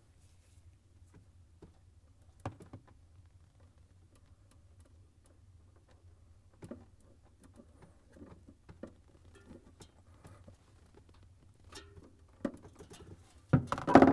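Hands working wires and plastic crimp connectors, squeezed with the crimping jaws of wire strippers: scattered small clicks and rustles over a faint low hum, with a few sharper, louder knocks near the end.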